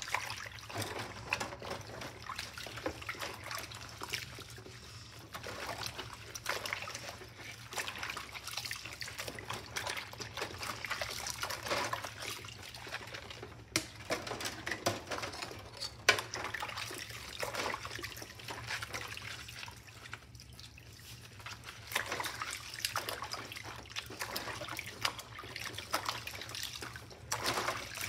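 Dishes being hand-washed in a sudsy stainless steel sink with rubber-gloved hands: soapy water sloshing and dribbling, with many small clicks of utensils knocking and one sharper knock about halfway.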